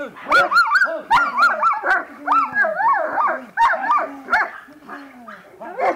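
German shepherd dogs barking fast and excitedly, about three barks a second with some barks overlapping, as they are agitated with a rag in protection training. The barking thins out in the last second or so.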